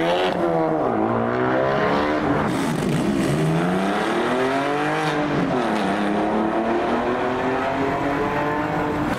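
Honda Civic Type R's turbocharged four-cylinder accelerating hard away through the gears. The engine note climbs three times, each climb cut by a quick drop in pitch at an upshift.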